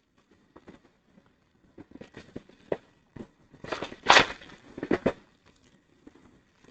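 Hard-drive packaging being handled and unwrapped: scattered small clicks and knocks, with two louder bursts of crinkling and rustling about four and five seconds in.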